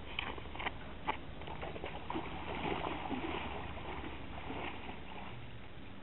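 A person wading through shallow lake water, legs splashing and sloshing in irregular bursts that fade toward the end. There are a few short knocks in the first second.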